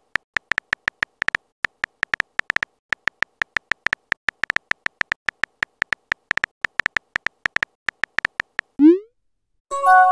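Synthetic phone-keyboard typing clicks, rapid and uneven, as a text message is typed out letter by letter. Near the end the clicks stop, a short rising whoosh marks the message being sent, and a ringing notification chime of several tones follows.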